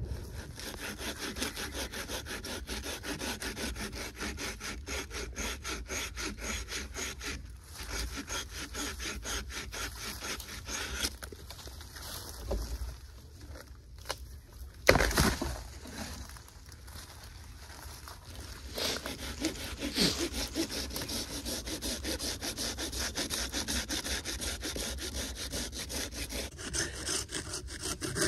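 Rapid, even back-and-forth rasping strokes, like a hand saw cutting wood. They die away after about eleven seconds, a single loud knock comes about halfway through, and the strokes start again for the last third.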